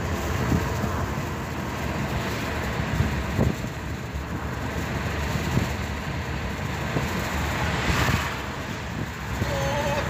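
Steady road and engine noise of a moving car, heard from inside the cabin, with a brief louder swell of rushing noise about eight seconds in.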